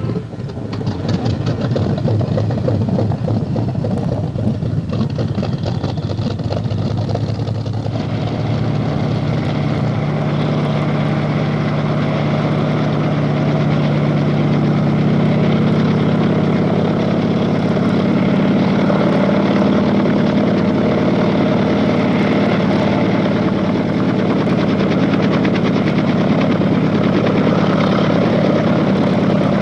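Helicopter engine and rotor running steadily, with a low drone that comes in about eight seconds in and grows a little louder.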